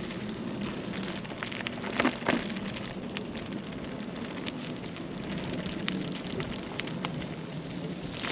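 Mountain bike tyres rolling over a wet, muddy track: a continuous hiss with many scattered small clicks and ticks, and a louder clatter about two seconds in.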